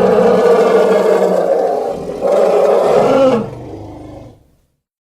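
Triceratops roar sound effect: one roar runs to about two seconds in, then a second, shorter roar follows. It tails off and stops about half a second before the end, leaving dead silence.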